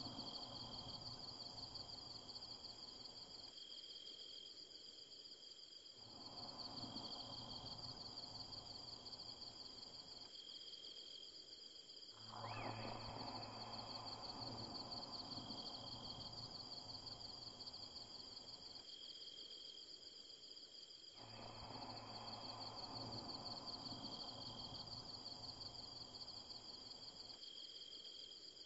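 Steady, quiet high chirring of an insect chorus, with a softer lower background sound that comes in and drops out every few seconds.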